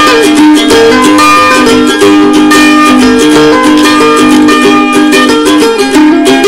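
Background music: a melody on plucked strings with notes changing every fraction of a second, at an even, loud level.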